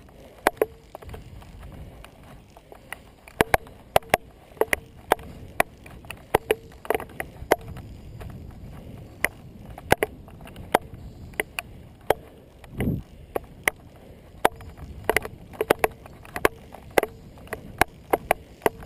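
Bicycle riding on rough pavement: a steady low rumble of tyres and wind, broken by irregular sharp clicks and knocks, about one to three a second, as the bike and its handlebar mount jolt over bumps. A short low thump comes a little past the middle.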